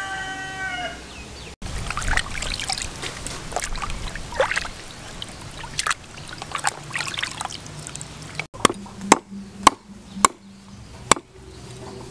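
The end of a rooster crow, then hands sloshing and splashing a plucked chicken in a plastic basin of water as it is washed. Near the end come five sharp chops of a cleaver through chicken feet onto a wooden chopping board, roughly two a second.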